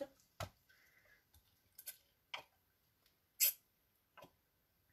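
A handful of light, separate clicks and taps from small objects handled on a craft table while paint is being mixed. The sharpest and loudest tick comes about three and a half seconds in.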